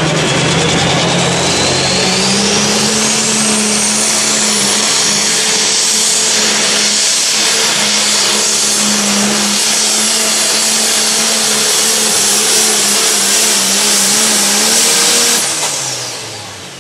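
Pro Stock pulling tractor's turbocharged diesel engine running flat out through a pull. A high turbo whine climbs steeply over the first few seconds and then holds high over the steady engine note. Near the end the engine falls away as the pull ends.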